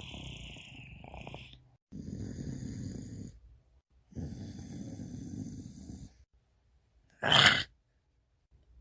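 A person's voice making animal-like growls: three long, raspy growls with short pauses between them, then one short, louder burst about seven seconds in.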